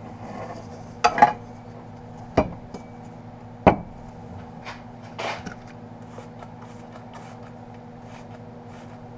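Exhaust wrap being wound around a steel motorcycle header pipe on a wooden workbench: four sharp knocks in the first four seconds as the pipe and wrap are handled, with rubbing and rustling of the wrap, over a steady low hum.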